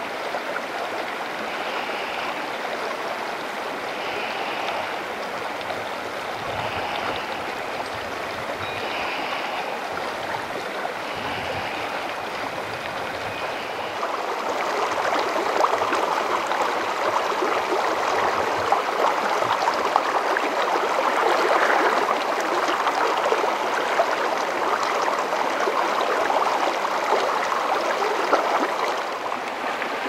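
Mountain stream rushing steadily, growing louder about halfway through.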